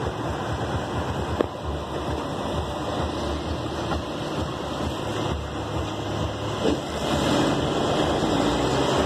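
Boat engine running steadily under a rush of wind and water noise, with two short knocks, the first about a second and a half in.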